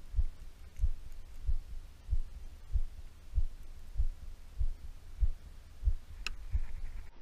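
Steady low heartbeat-like thumping, about one and a half beats a second, over a low hum. There is a single sharp click about six seconds in.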